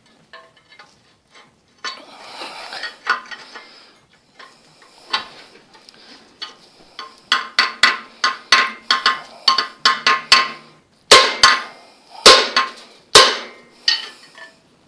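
Hammer blows on a seized piston and connecting rod in the cast-iron block of a Ford flathead V8, driving the stuck piston out. A few scattered knocks and scrapes come first, then a fast run of ringing metal-on-metal strikes at about three a second, and near the end four heavier, louder blows.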